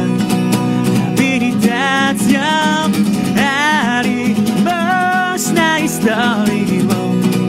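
A man singing live to his own strummed acoustic guitar, the voice held on long notes with vibrato over the continuous guitar chords.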